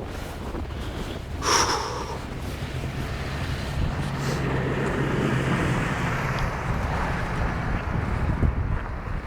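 Snowstorm wind buffeting the microphone: a steady rumbling rush, with one brief sharp, high sound about a second and a half in.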